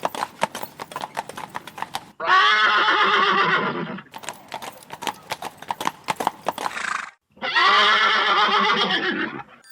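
Horse sound effect: a fast clip-clop of hooves, then a neigh, more hoofbeats, and a second neigh near the end.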